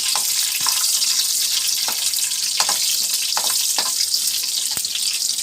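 Hot oil in a kadai sizzling loudly with mustard seeds, fenugreek and urad dal frying in it for a tempering, with sharp crackles every half second or so.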